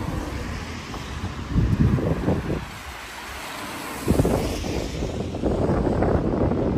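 Wind buffeting the microphone: an irregular low rumble that swells in gusts, loudest about two seconds in and through the second half.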